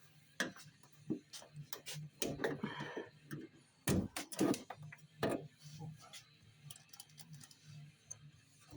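Irregular clicks and knocks of hand work with a screwdriver on the tailgate trim, a few louder knocks about four to five seconds in, over a faint low hum.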